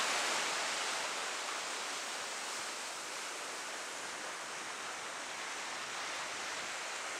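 Sea waves breaking and washing over breakwater rocks, a steady rushing of surf.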